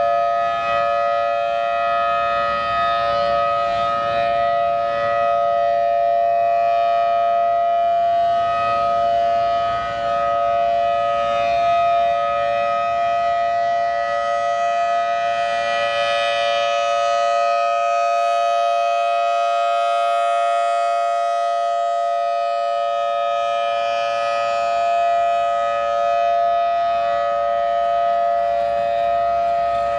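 Federal Signal Thunderbolt 1000T outdoor warning siren sounding at a steady pitch, its level swelling and dipping slightly. This is an unscheduled activation, set off for an unknown reason well after the city's siren test.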